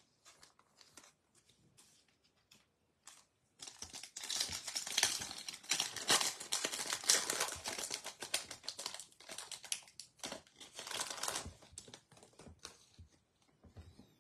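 A foil Topps Chrome baseball card pack being torn open and crinkled by hand. The wrapper crackles for about eight seconds, starting about three and a half seconds in, with light ticks of handling before and after.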